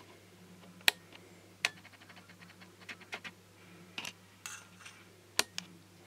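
Lock-picking tools working a brass Securit euro-profile double cylinder lock held in a vise: a string of sharp metallic clicks and taps, a quick run of fine ticks after about a second and a half, and a short scrape, over a faint low hum.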